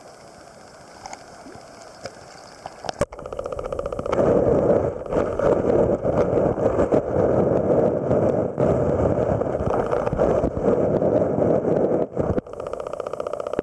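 Small stream's flowing water heard through a camera held underwater. There is a faint hiss at first; after a knock about three seconds in comes a loud, muffled rushing that drops out briefly near the end and then goes on a little quieter.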